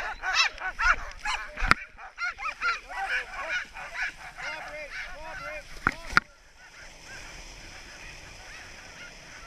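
Team of Alaskan husky sled dogs yelping and barking in rapid, rising-and-falling calls, eager to go, with a few sharp clacks. About six seconds in the yelping stops abruptly as the team runs, leaving a steady hiss of sled runners on snow.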